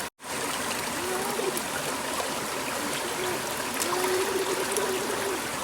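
Running water, a steady stream or trickle, broken by a brief gap just after the start.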